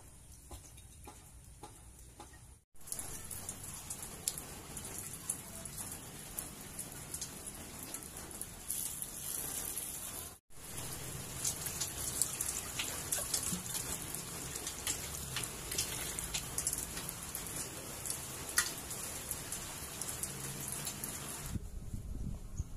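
Water sloshing, splashing and pouring as a hollowed-out glass light bulb is rinsed and emptied into a plastic basin, with scattered small clicks and knocks. It is quieter for the first few seconds and louder after that.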